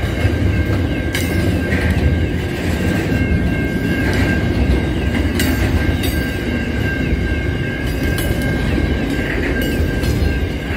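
Long container freight train rolling past: a steady low rumble of wagons with a few sharp clicks of wheels over rail joints, and a thin high squeal that holds throughout.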